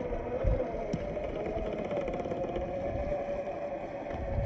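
Scale RC crawler's electric motor and gear drive whining steadily at crawling speed, with low rumble underneath.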